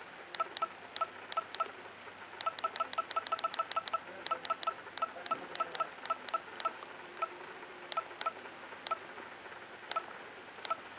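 Panasonic Lumix TZ20 compact camera beeping at each press of its cursor buttons while its date is being set: short beeps, each with a click. A quick run of about six presses a second comes a couple of seconds in, then the presses slow to about one a second.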